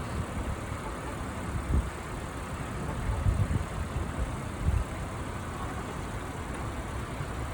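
Steady background rumble of a vehicle engine and street noise, with a few soft low thumps scattered through the first five seconds.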